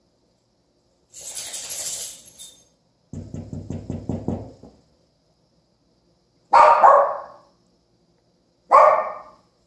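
Small dog barking twice, two sharp loud barks a couple of seconds apart near the end. Before them come a brief hissing noise and a low pulsing rumble.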